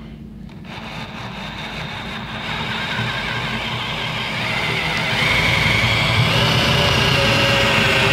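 Cordless drill running in reverse, driving a Grabit Speedout screw extractor into a rusted, rounded-off screw head and cutting through the rust. The motor whine starts a little under a second in and grows louder, stepping up again about five seconds in as the bit bites and the load rises.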